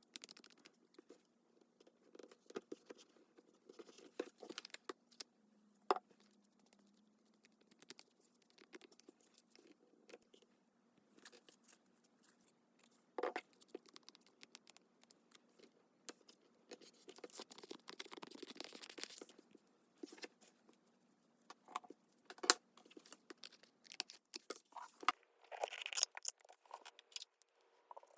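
Paper and craft materials being handled for a junk journal: rustling and scraping with scattered sharp taps and clicks, and a longer scratchy rustle about two-thirds of the way through.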